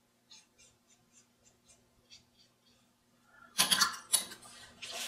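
Faint, soft strokes of a watercolour brush on paper, then about three and a half seconds in a sudden sharp clatter and rustle, the loudest sound here.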